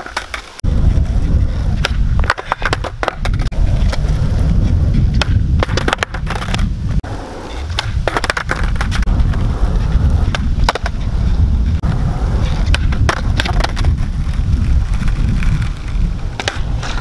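Skateboard wheels rolling on rough asphalt, with several bursts of sharp wooden clacks as the tail is popped for kickflip attempts and the deck slaps and clatters onto the court.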